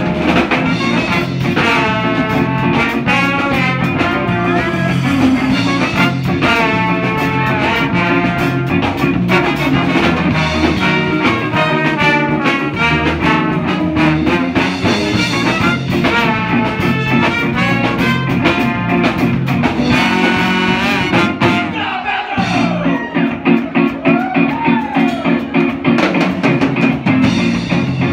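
A live band playing up-tempo music: a horn section of saxophone, trumpet and trombones playing riffs together over drums, bass and guitar. About three quarters of the way through the horns stop and the rhythm section carries on, with a few sliding, bending lead notes.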